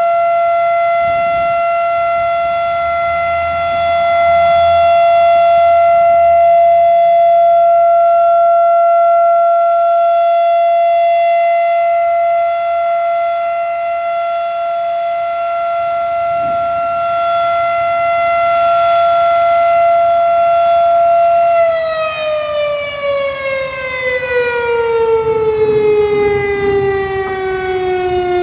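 Federal Signal Thunderbeam RSH-10 outdoor warning siren sounding its alert signal: one steady high tone held for about twenty seconds, swelling and easing slightly in loudness. About 22 seconds in it starts winding down, the pitch falling steadily as the signal ends.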